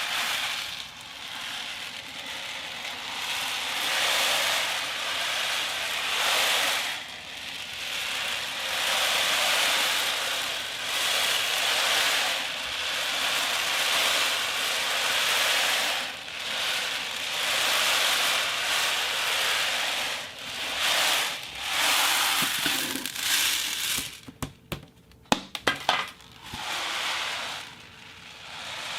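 Foley imitation of beach surf: a grainy hissing rush that swells and fades every two to four seconds, like small hard grains rolling and shifting, with a burst of sharp clicks and clinks a few seconds before the end.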